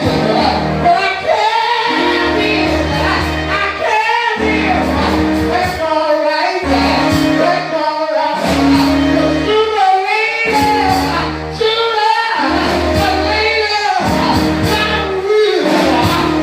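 Gospel singing with instrumental backing: voices sing a melody over sustained bass and keyboard chords.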